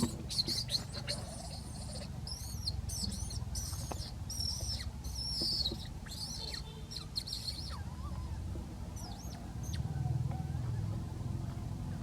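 A rapid run of short, high-pitched chirping calls, each rising and falling, over a low steady rumble; the calls thin out after about six seconds and a few more come around nine to ten seconds.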